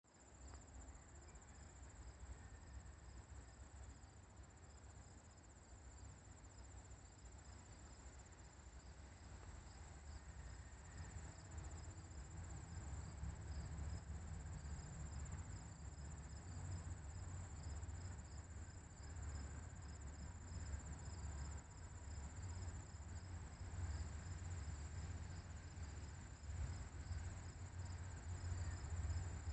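Crickets chirping steadily in a high, even trill with a regular pulsing note. Under them is a low rumble that grows louder about a third of the way through.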